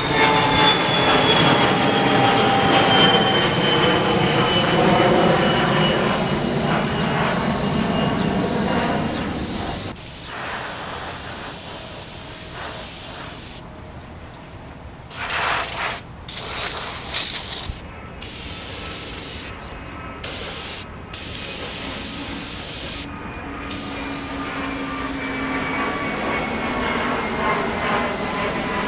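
Airbrush spraying paint with a steady high hiss; in the second half the hiss stops and restarts about six times as the trigger is let go and pressed again. Over the first ten seconds a louder rumbling noise with slowly falling whines fades away beneath it.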